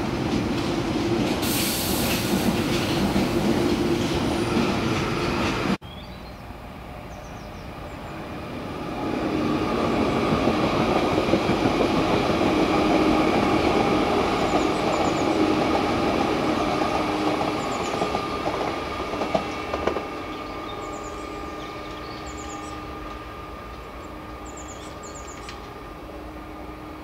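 London Underground Northern Line 1995 Stock tube trains on open-air track. The first runs away into the distance. After a sudden cut about six seconds in, another grows louder, passes close with a steady motor hum and its wheels running over the rails, then fades as it pulls away, with a few sharp clacks about twenty seconds in.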